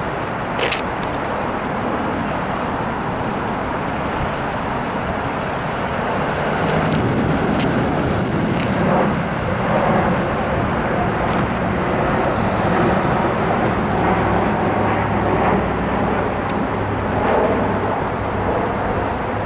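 Road traffic: cars driving past on a street, the noise swelling in the middle stretch as vehicles come by, with a low engine hum in the later part.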